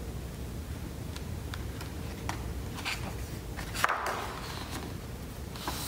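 A picture book's paper page being turned by hand, a brief rustle about four seconds in, over a steady low room hum with a few faint clicks.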